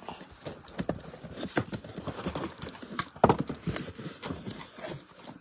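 Irregular taps and knocks of cardboard card boxes being handled and set down on a table, with a sharper knock about three seconds in.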